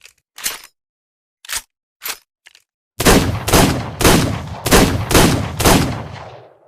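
Revolver sound effect: a few short sharp clicks, then six gunshots in quick succession about half a second apart, with a reverberant tail fading after the last shot.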